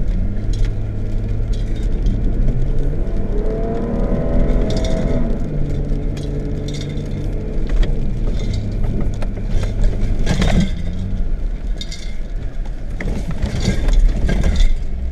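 Car driving on an unpaved steppe track, heard from inside the cabin: the engine runs steadily under road noise, with scattered knocks and rattles from bumps, strongest about ten seconds in.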